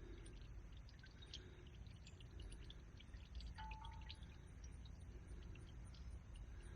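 Near silence: faint scattered ticks of engine oil dripping from the oil filter housing into the drain pan, over a low background rumble.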